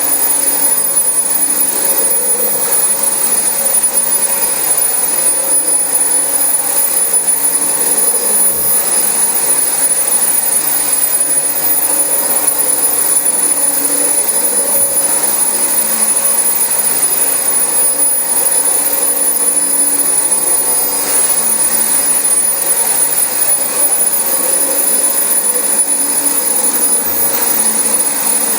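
Dyson DC25 ball upright vacuum cleaner running steadily on carpet, its motor giving a constant high whine over a loud rushing airflow.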